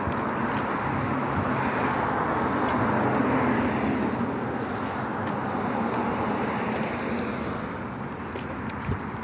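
A car driving: steady road and engine noise, swelling a little partway through and easing off near the end.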